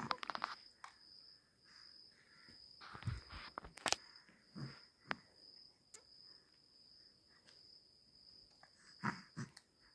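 Faint, steady, high-pitched insect trill, with a few soft clicks and thumps scattered through.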